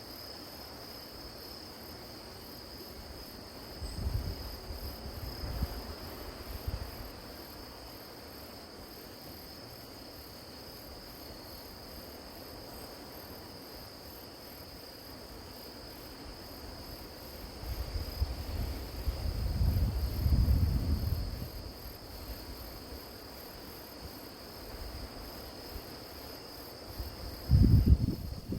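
Crickets and other grass insects chirring steadily in a high, even band. Low rumbles come and go three times, the loudest near the end.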